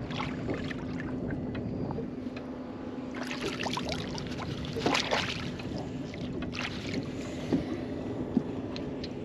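Shallow water splashing and sloshing in short bursts as shells are gathered by hand from the channel bed, over a faint steady hum that fades out about two seconds in.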